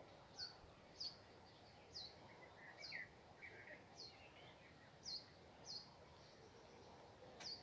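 A small bird chirping faintly: short high notes, each dropping in pitch, about one a second, over a quiet background hiss.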